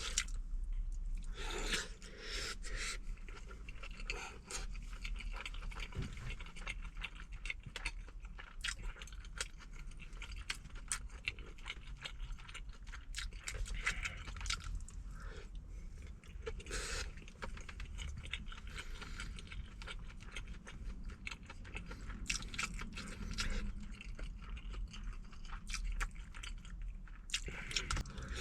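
Close-up eating sounds: wet chewing and mouth clicks of braised chicken and rice, irregular throughout, with occasional scrapes, over a steady low hum.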